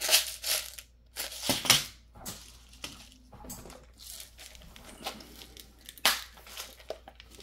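Rummaging through a container of small hobby parts: plastic bags crinkling and small hardware rattling in irregular bursts, loudest near the start, about a second and a half in, and again about six seconds in.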